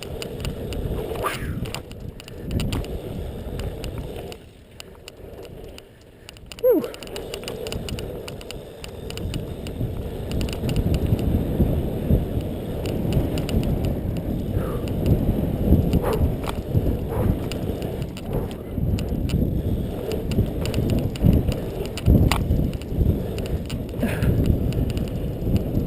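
A BMX bike being ridden hard around a BMX track: a rumbling rush of wind over the microphone with rattles and knocks from the bike. It gets louder and busier from about ten seconds in as the lap picks up speed.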